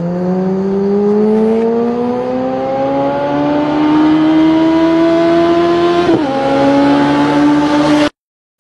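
Car engine accelerating hard, its pitch rising steadily for about six seconds, dropping at a gear change, then running steady before cutting off suddenly near the end.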